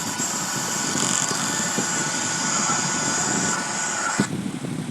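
Motoi boat kiddie ride running its machinery with a steady mechanical hum and hiss, which cuts off suddenly about four seconds in as the ride stops at the end of its game.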